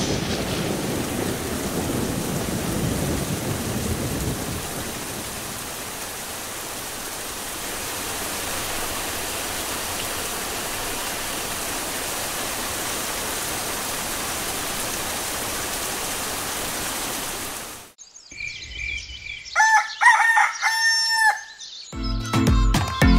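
A steady rushing noise that cuts off suddenly, then a rooster crowing, then music with a beat.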